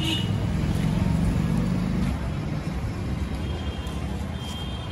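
Street traffic: a motor vehicle engine running close by, a steady low rumble that eases off after about two seconds, over the general din of the road.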